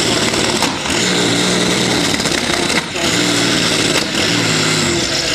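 Modified pulling tractor's engine at full throttle, a loud, steady, high-revving drone, as it hauls the weight-transfer sled down the track.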